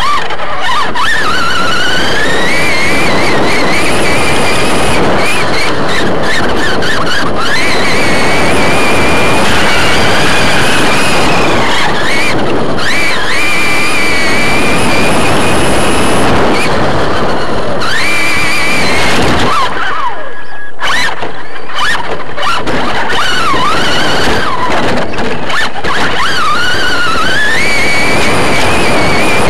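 Onboard sound of a modified-class short course RC truck racing on dirt: its brushless electric motor and gears whine, rising and falling with the throttle, over a loud, rough rush of wind and dirt on the truck-mounted microphone. The sound drops away briefly twice, in the middle and again about two-thirds of the way through.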